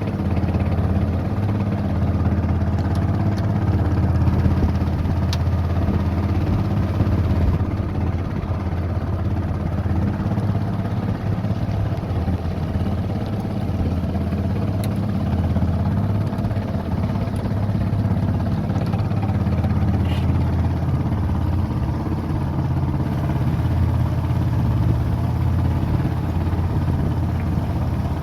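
A boat's engine running steadily, a low even hum.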